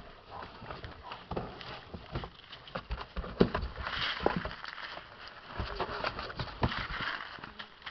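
Puppies scrabbling on and inside a cardboard box: an irregular run of knocks, taps and scrapes of cardboard and claws, with the box scuffing over the concrete floor.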